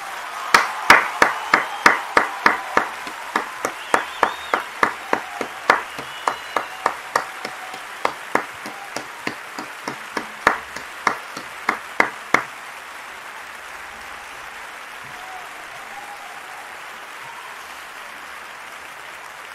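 One person clapping their hands close to the microphone, about three sharp claps a second, stopping about twelve seconds in. Behind it runs a steady hiss of crowd applause.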